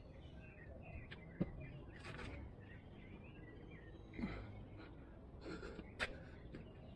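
Faint sounds of someone doing burpees: a few short, breathy gasps of hard breathing and a couple of sharp taps as hands and feet meet the ground. Small birds chirp faintly in the background.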